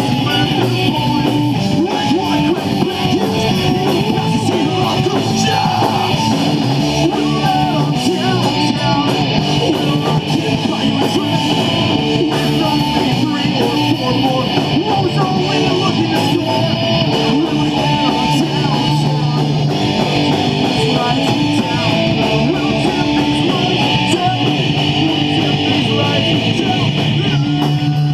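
Live heavy metal band playing loud and without a break: distorted electric guitars, bass and drum kit, with the vocalist singing into the microphone.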